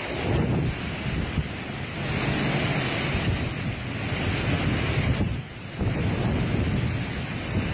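Cyclone-force wind gusting, heavily buffeting the microphone, with a short lull a little past halfway.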